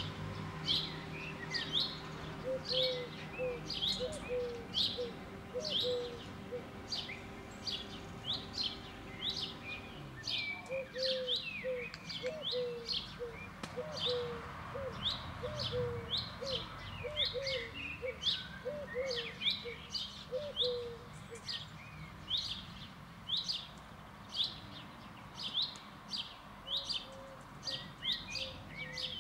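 A songbird calling a short, high chirp over and over, about twice a second. Two runs of lower, quick repeated notes from a second caller come in near the start and again through the middle.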